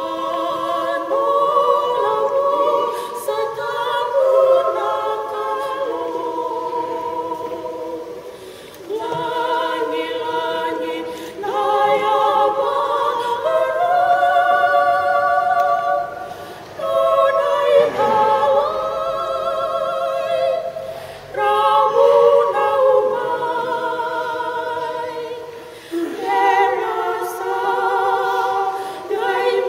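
Women's choir singing unaccompanied, many voices together, in long phrases with brief pauses between them.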